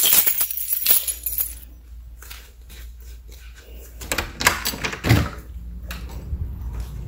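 Clothing rustling against the camera, then a lever door handle being turned and the latch clicking and knocking as a front door is pulled open, followed by a low steady rumble of outdoor air.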